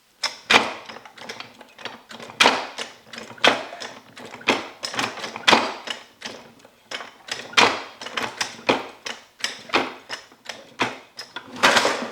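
Hand work on a metal mechanism: sharp mechanical clacks at about one a second, with lighter clicks in between.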